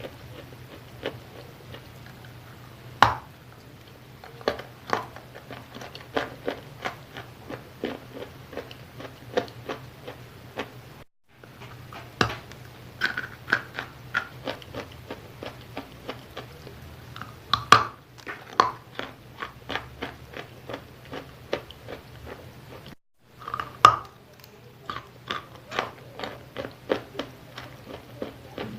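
Close-up chewing of wet chalk: a steady run of moist crunches, about two to three a second, with a few sharper, louder bites every several seconds. A low steady hum sits underneath, and the sound cuts out briefly twice.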